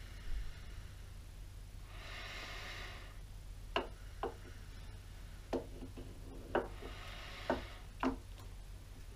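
A lathe's metal crank handwheel being fitted by hand onto the cross-slide, giving six light metal clicks and clinks spaced about half a second to a second apart over the second half. Two loud breaths out through the nose come about two seconds in and again near the end, over a steady low hum.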